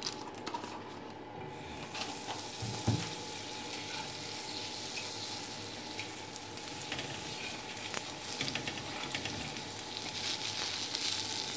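Butter sizzling and frying on a hot flat griddle (tawa) around a stuffed pav bun, with a light knock about three seconds in.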